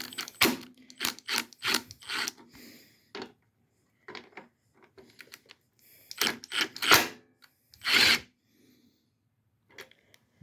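Hand tools and small metal parts clicking and clinking while a fuel pump is unbolted from a Briggs & Stratton V-twin engine: a run of sharp knocks for the first few seconds, a sparser patch, another cluster about six seconds in, and a short rasping burst about eight seconds in.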